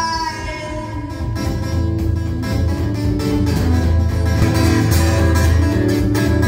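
Acoustic guitar strummed in a steady rhythm, an instrumental passage of a live song with no singing.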